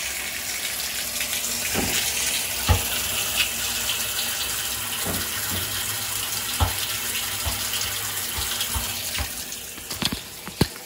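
Whirlpool direct-drive top-load washing machine filling for the rinse: a steady stream of water pouring into the tub, with a few light knocks, and the sound drops lower near the end.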